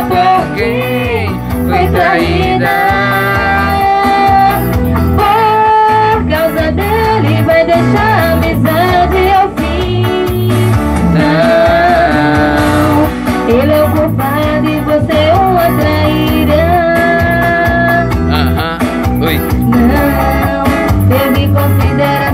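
A woman singing into a microphone over loud backing music with guitar and a steady beat.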